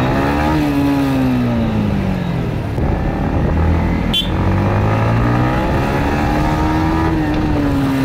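Yamaha MT-15's single-cylinder engine running on the road, its pitch rising under throttle then falling back as the rider eases off, twice. There is one sharp click about four seconds in.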